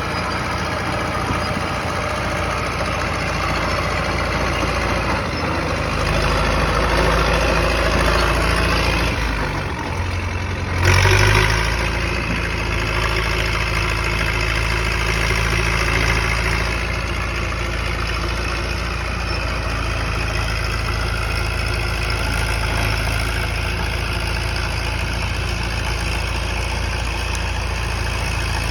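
Caterpillar D4E bulldozer's diesel engine running steadily. The engine gets louder about six seconds in, drops in pitch around ten seconds, then surges loudly for a moment just after and settles back to a steady run.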